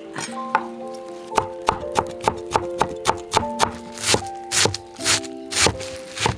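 Cleaver chopping spring onions on a wooden cutting board: a steady run of knocks, about three a second, starting about a second in, over background music.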